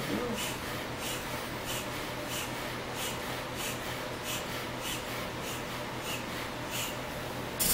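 Foot pump worked steadily underfoot to inflate an exercise ball, each stroke letting out a short hiss of air, about three every two seconds, with a louder puff near the end.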